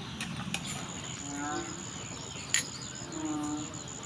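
A high, steady insect trill sets in about a second in. Soft hen clucks come twice, and a few sharp clicks sound from a metal spoon working paste in a wooden mortar.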